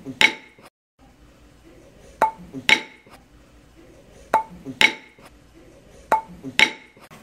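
Sharp, briefly ringing clinks in pairs, the two about half a second apart, with a new pair about every two seconds, four pairs in all.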